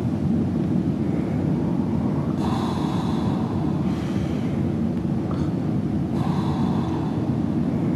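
A man snoring softly through an open mouth, two slow breaths about two and a half and six seconds in, each lasting about a second, over a steady low drone.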